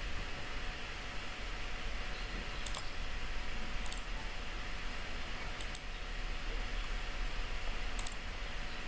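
A handful of sharp computer mouse clicks, spaced a second or two apart with two in quick succession near the middle, over a steady hiss and a low hum.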